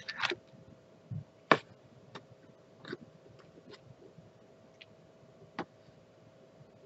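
Scattered light clicks and taps of hard plastic being handled: a diamond-painting drill storage box and a plastic sorting tray being picked up and set down. The sharpest click comes about a second and a half in, with a few fainter ones after it.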